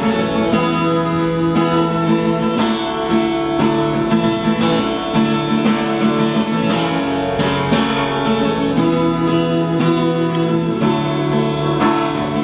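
Acoustic guitar strumming and picking a steady chord progression as the instrumental introduction of a song, before the vocals come in.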